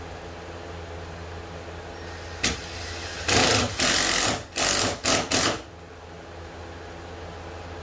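Cordless drill driving screws into a canoe's vinyl gunwale: one brief run about two and a half seconds in, then four short trigger pulls over the next two seconds, the motor briefly loud each time. A steady low hum underneath throughout.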